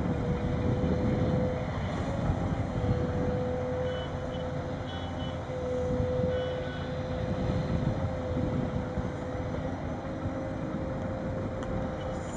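Sennebogen 870 M material handler running as its boom swings and the grapple picks up logs: a steady machine drone with a held whine over it.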